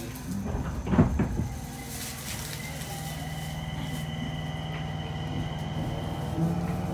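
Mitsubishi hybrid-SiC VVVF inverter and traction motors of a Nagoya subway 5050-series car, heard from inside the car as the train pulls away: a thump about a second in, then a steady high inverter whine and lower motor tones that grow louder as it accelerates.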